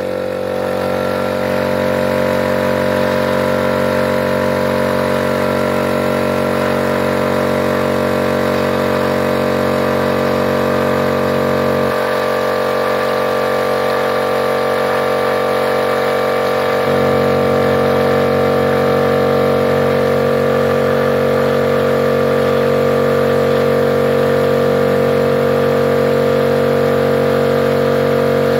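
MultiPro 3/4 HP electric air compressor (DCC-075/10 OW) running steadily, motor and pump going as it fills its tank. Its tone shifts slightly about twelve seconds in, and it gets a little louder about seventeen seconds in.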